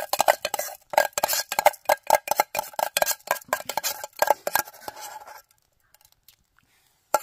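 A metal spoon clinking and scraping rapidly against a metal cooking pot, several ringing strokes a second. It stops about five seconds in and starts again at the very end.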